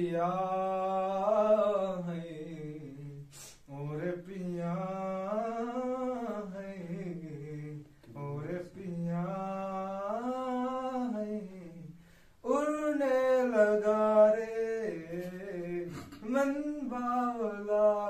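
A man singing slowly without accompaniment, in four long, drawn-out phrases of three to four seconds each with short breaks between them.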